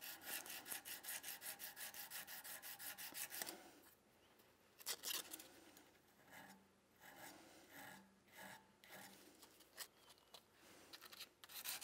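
Short, quick strokes of 240-grit emery paper wrapped around a small file, rubbing across the flat metal of a revolver's trigger guard to level out small ripples. There is a fast run of about five strokes a second at first, then a few scattered strokes, and another quick run near the end.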